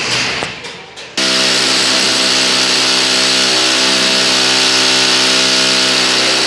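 Electric power drill starting abruptly about a second in, then running steadily under load as it bores into the wall.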